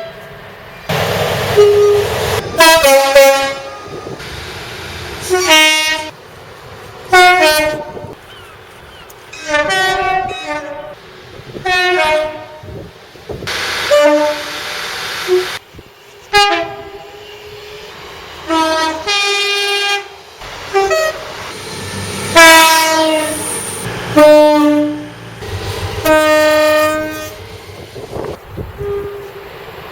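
A rapid string of about a dozen railway locomotive horn blasts, each a second or two long. Many are two-tone horns stepping between a high note and a low note, with train rumble underneath between blasts.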